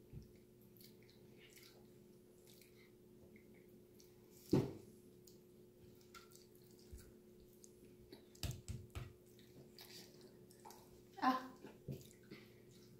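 Quiet handling of chapati dough: small squishing and tapping as hands work the dough in a plastic bowl and on a floured wooden board, over a faint steady hum. A few louder short bumps come about a third of the way in, twice in quick succession past the middle, and once more near the end.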